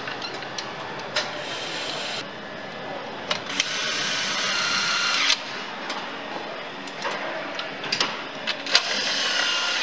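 Cordless power screwdriver whirring in short runs as fasteners are driven: one run of almost two seconds about three and a half seconds in, and a shorter one near the end. Clicks and knocks of parts being handled come in between.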